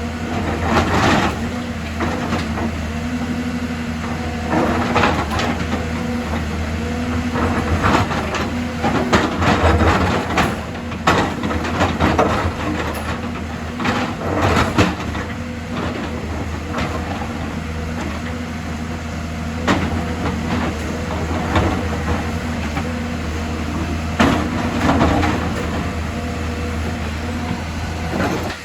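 Excavator's diesel engine running steadily under load, with irregular clanks and scraping noises from the machine at work.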